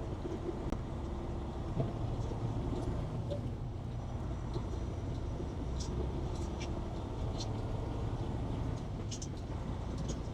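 Steady low drone of a truck driving on the highway, heard from inside the cab: engine and road noise, with faint scattered ticks.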